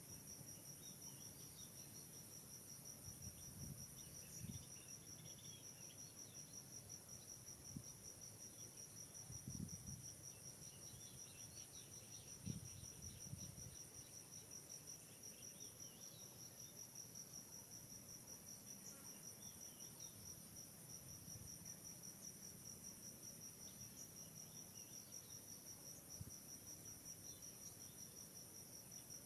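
Faint, steady high-pitched trilling of crickets or similar insects, with a few soft low thumps scattered through the first half.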